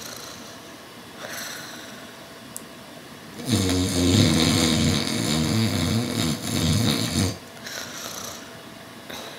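A person snoring: a faint breath early on, then one long, loud, rattling snore lasting nearly four seconds. The uploader says it was not real snoring, so it is put on for the camera.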